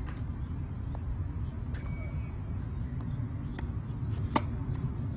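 Tennis racket striking the ball on a serve: a single sharp crack a little over four seconds in, the loudest sound, with a few fainter ticks earlier. A steady low rumble runs underneath.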